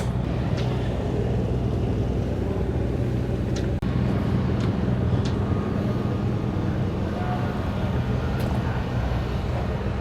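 Steady low vehicle noise, an even hum and rumble, with a few faint clicks scattered through it.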